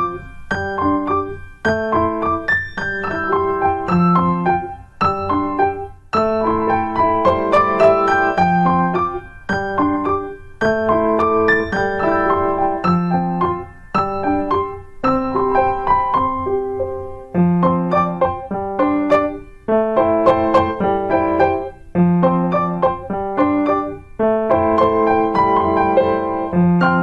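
Background piano music playing in short repeated phrases of about two seconds each.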